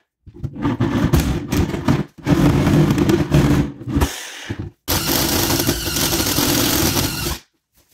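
Sawzall reciprocating saw cutting into a plywood panel in two bursts with a brief stop between them, then, about a second later, a cordless DeWalt drill boring into the same spot for about two and a half seconds before stopping sharply.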